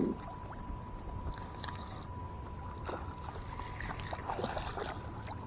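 Quiet sounds from a small fishing boat on the water: water lapping against the hull, with scattered small ticks and taps and a faint steady tone.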